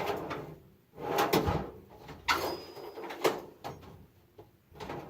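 Handling clatter of tools: a string of sharp knocks and clicks, several clustered about a second in and more spaced out after, like a screwdriver being picked out from among other tools or a drawer.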